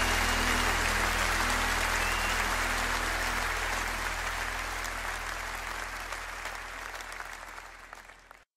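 Applause at the end of a live recording, fading out slowly until it cuts to silence just before the end, over a faint steady low hum.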